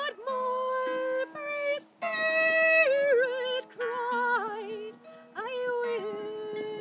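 A woman singing a slow hymn with vibrato, accompanying herself on a harp with plucked, ringing notes beneath the voice. Near the end she holds one long note.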